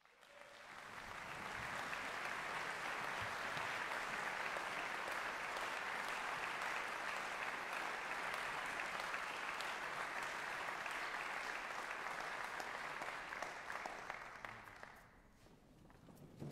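Audience applauding, swelling in over the first couple of seconds, holding steady, then dying away near the end.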